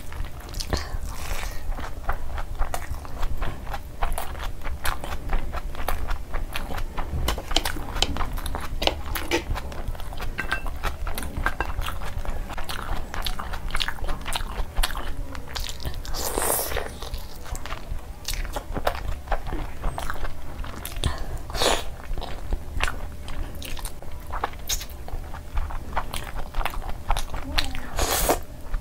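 Close-up chewing and biting of meat curry and biryani rice eaten by hand: a dense run of wet mouth clicks and smacks, with a few louder bursts about sixteen, twenty-two and twenty-eight seconds in.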